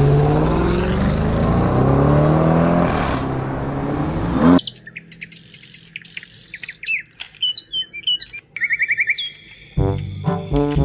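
A sports car engine revving, its pitch climbing, for about four and a half seconds before it cuts off abruptly. Short high chirps and whistling tweets follow.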